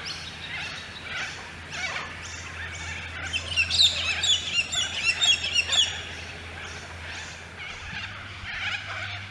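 Small birds chirping and twittering, a rapid flurry of short high calls that is busiest from about three and a half to six seconds in.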